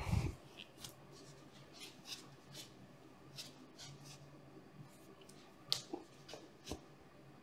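Faint rustling and scattered soft clicks of a person moving through windmill stretches on an exercise mat, picked up close by a clip-on microphone on her top, with a low thump right at the start and a few sharper clicks near the end.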